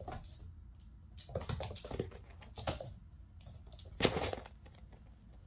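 Kittens' paws scampering and thumping on a wooden floor and foam mats as they chase a laser dot, in several short flurries, the loudest a pounce about four seconds in.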